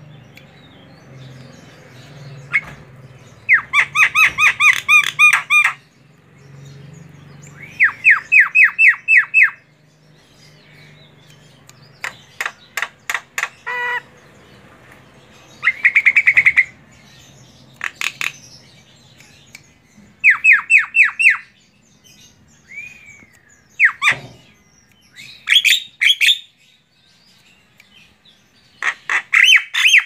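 Female Javan myna (jalak kebo) calling in rapid runs of short repeated notes. Each run lasts a second or two, with pauses between, and a lone slurred note and a sharp click come in the second half.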